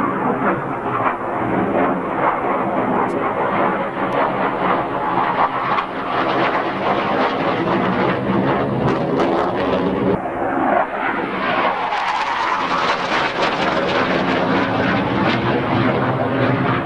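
MiG-21UM jet trainer's Tumansky R-13-300 turbojet heard from below as the aircraft manoeuvres in a flying display: loud, continuous jet noise, its high end dropping away briefly about ten seconds in and then swelling again.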